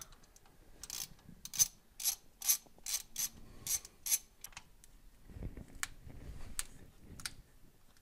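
Socket ratchet wrench clicking in a quick run of even strokes, about two to three a second, as it loosens the positive battery cable's terminal nut on the starter, then a few stray clicks and handling knocks.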